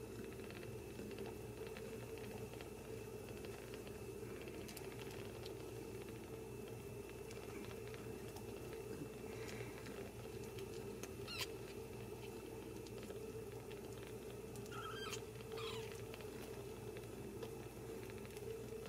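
Newborn Ragdoll kittens nursing: small soft clicks from suckling and a few faint high squeaks, one about halfway through and a couple more later, over a steady low hum.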